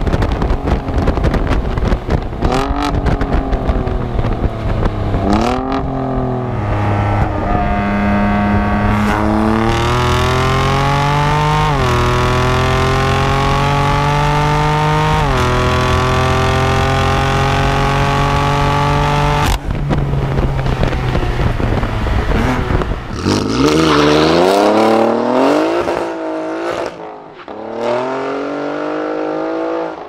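Two decat twin-turbo sports-car exhausts recorded right at the tailpipes under hard acceleration: first an Alfa Romeo Giulia Quadrifoglio's 2.9 V6 on a Capristo exhaust, then a BMW M4's 3.0 inline-six on a Milltek exhaust. The revs climb and drop back at each upshift, every few seconds. Near the end a Giulia Quadrifoglio is heard revving hard as it accelerates away.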